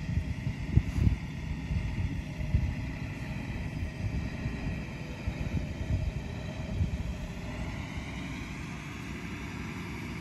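Wind buffeting the microphone in uneven low gusts, over a faint steady whine of several tones that drift slowly in pitch.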